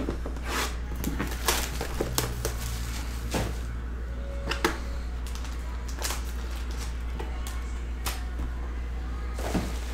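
Shrink-wrapped Panini Playbook trading-card boxes being handled and ripped open by hand: irregular crinkles, taps and tearing of plastic wrap and cardboard, over a steady low hum.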